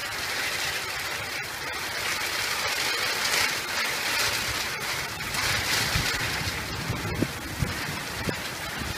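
Heavy thunderstorm rain pouring down steadily as a dense hiss. A few short, low thumps come in the last few seconds.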